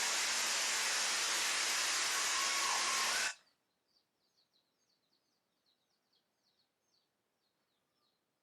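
Torrential rain hissing loudly and steadily, cutting off abruptly about three seconds in; faint chirping of small birds follows.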